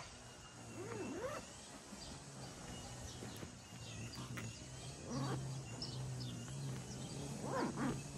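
Birds chirping over a steady low hum, with a few louder swishes of nylon tent fabric and carry bag being handled, the loudest near the end.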